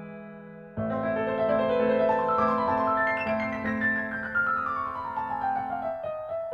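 Background piano music: a chord struck about a second in, followed by a long run of notes falling in pitch.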